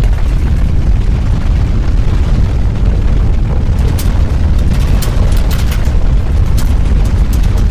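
Earthquake sound effect: a heavy, continuous deep rumble, joined from about four seconds in by a scatter of sharp cracks and rattles.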